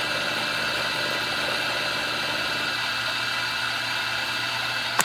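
Milling machine running steadily, its end mill cutting out the internal cavity of a gun's guide rod housing. A single sharp click comes at the very end.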